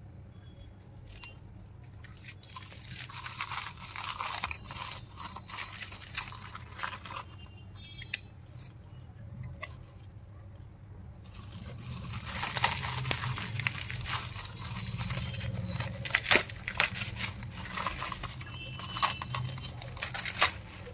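Plastic bubble wrap crinkling and rustling as it is handled and pulled off a ceramic mug, with many small crackles. Quieter at first, it gets louder and busier about halfway through as the wrap comes off.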